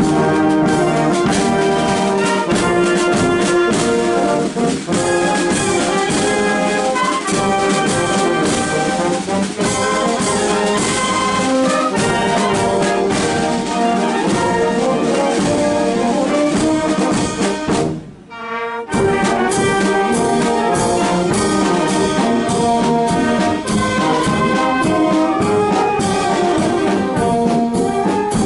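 Portuguese filarmónica wind band playing with full brass: trumpets and trombones carry the tune. The music breaks off for about a second some 18 seconds in, then starts again.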